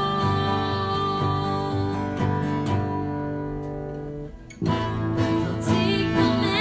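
Acoustic guitar music with sustained strummed chords. The sound dies away briefly and a fresh strum comes in about four and a half seconds in.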